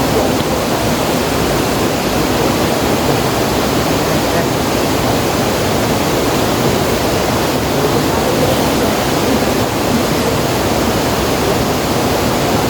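Steady rushing of river water, a loud even wash of noise with no breaks.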